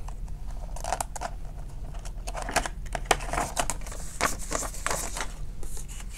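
Paper banknotes (prop money) rustling and snapping as they are pulled from a cash-envelope binder and counted by hand: a run of short, crisp rustles and flicks.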